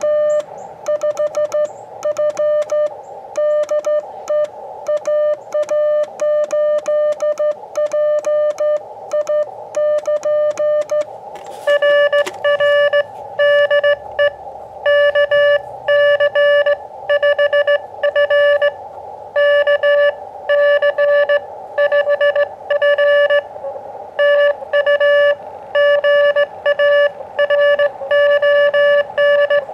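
Morse code (CW) from an Elecraft KX2 transceiver: a single steady tone of about 600 Hz keyed on and off in dots and dashes over faint receiver hiss, an amateur-radio contact being exchanged. The tone becomes louder and brighter about twelve seconds in.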